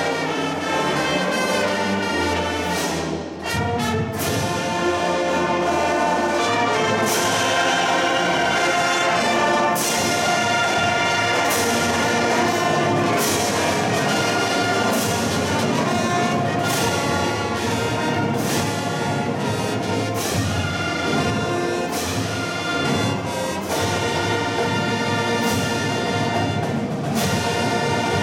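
High school marching band playing loud full-ensemble music, brass-led with sustained chords and regular percussion hits.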